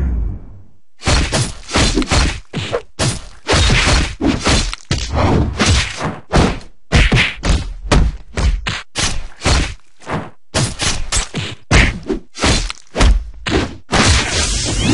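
A rapid, irregular string of punch and kick hit sound effects, thuds and whacks, from a stick-figure fight animation, with a short gap about a second in.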